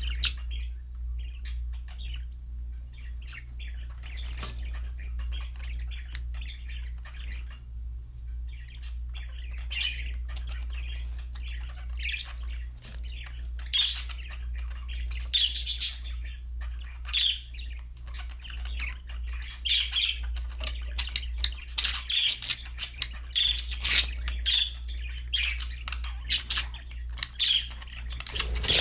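Pet budgerigars chirping and chattering on and off, more often in the second half, over a steady low hum.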